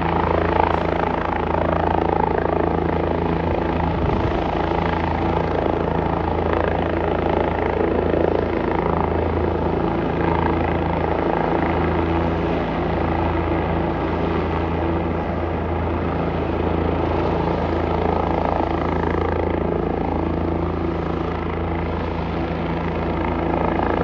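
Helicopter running steadily overhead: a continuous, even drone of rotor and engine with a steady low hum underneath.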